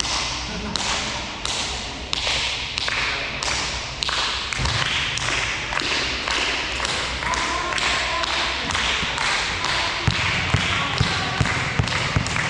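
Steady rhythmic hand clapping, about one and a half claps a second, echoing in a sports hall. Near the end a quick run of low thuds joins in, like a volleyball being bounced on the court floor.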